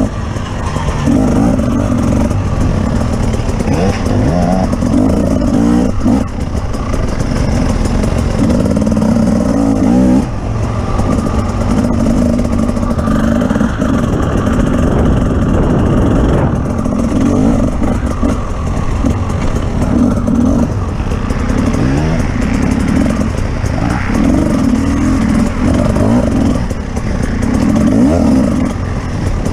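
Off-road vehicle engine being driven hard, its pitch rising and falling every few seconds as it revs up and eases off, over a steady low rumble.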